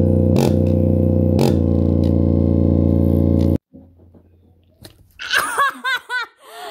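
JBL Flip 4 Bluetooth speaker playing a loud, distorted bass note, driven hard with two sharp clicks, then cutting off suddenly about three and a half seconds in. Near the end a person's voice calls out in a few short rising-and-falling cries.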